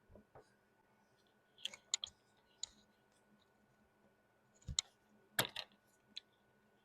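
Light, irregular clicks and taps in small clusters, about two seconds in and again near five seconds: a paintbrush tapping and working against small plastic containers of gouache paint.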